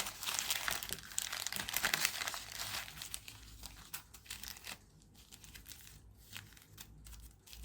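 Packaging being crinkled and handled, dense and steady for about the first three seconds, then thinning to fainter, scattered crackles.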